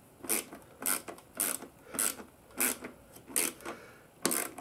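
Small Torx bit ratchet clicking in seven short bursts, a little under a second apart, as it is worked back and forth to tighten a small screw.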